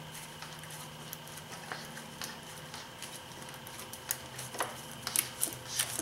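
Gloved hand turning a plastic oil filter housing cap on a BMW inline-six, giving scattered faint clicks and rubbing, with a few sharper clicks near the end. A steady low hum runs underneath.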